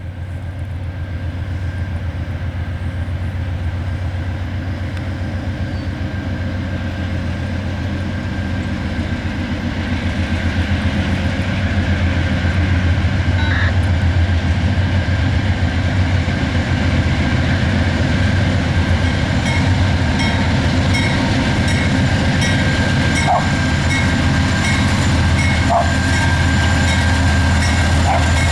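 Freight train's diesel locomotives approaching with a steady low engine rumble that grows louder over the first ten seconds or so and then holds. A few short squeaks come in near the end.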